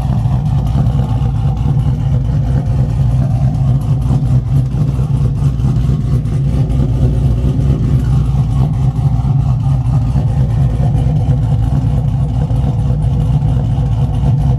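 V8 exhaust from an engine fitted with a PCMofNC Attitude V3 performance camshaft, running steadily at an even level without big revs.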